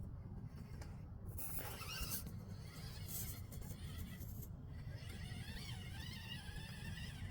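Micro RC crawler's small electric motor and gearbox whining as it crawls, the pitch wavering up and down with the throttle, in two stretches, over a steady low rumble.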